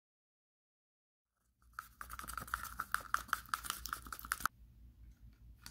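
Epoxy being stirred in a small cup: a mixing stick scrapes and clicks rapidly against the cup for about three seconds, starting about two seconds in, then stops abruptly.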